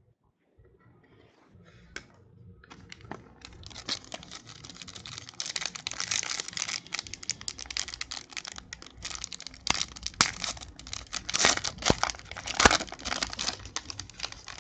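A trading-card pack wrapper being torn open and crinkled by hand, crackling with sharp rips. It starts about two seconds in and gets louder, busiest in the second half.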